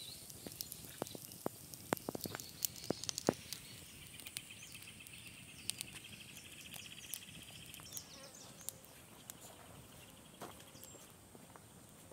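Campfire of dry sticks burning with sharp crackles and pops, most of them in the first few seconds. An insect trills for about three seconds in the middle, over a faint steady high insect whine.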